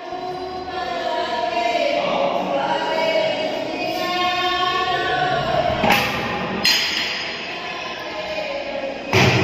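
Background music with singing voices, with a few sharp hits about six and nine seconds in.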